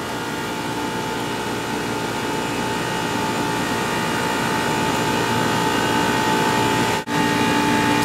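Water-source heat pump running in cooling mode, a steady mechanical hum with a couple of constant tones, growing gradually louder as its water valve is closed down to raise the head pressure. It drops out briefly near the end.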